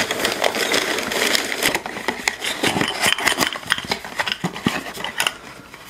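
Crumpled packing paper crinkling and rustling as an item is unwrapped, dense for the first couple of seconds, then a small paperboard box handled and its flaps pulled open with sparser light ticks and taps.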